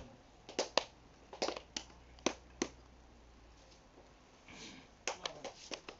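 Ceremonial hand claps at a kava ceremony, single and in pairs: several spread over the first three seconds, then a quick cluster near the end.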